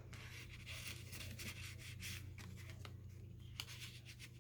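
Faint rustling and scraping of paper and fabric trim being handled, with a sharp click about three and a half seconds in, over a steady low hum.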